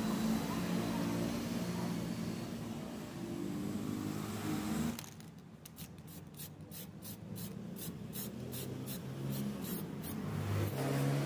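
Background music of held, stepping notes. About halfway through, a run of short hissing bursts comes in, about three a second, then stops near the end.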